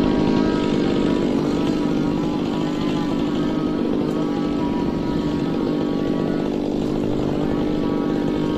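Two-stroke chainsaw running steadily at high revs, its pitch wavering slightly up and down.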